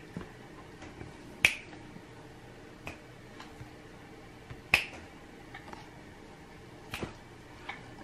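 A few sharp, separate clicks spaced a second or more apart, the two loudest about a second and a half in and near five seconds in, with a quick double click around seven seconds.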